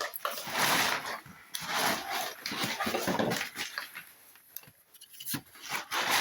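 Cardboard and plastic packaging rustling and scraping in handling, in several bursts broken by sharp clicks and knocks.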